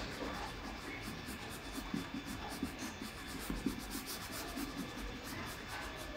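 Green crayon rubbed across paper in quick, repeated short strokes while colouring in, a faint scratchy rubbing.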